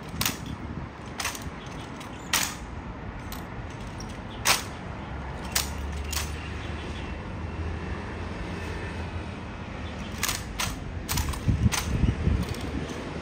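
A series of sharp clicks and knocks at irregular intervals, some close together, with a low rumble for a few seconds in the middle.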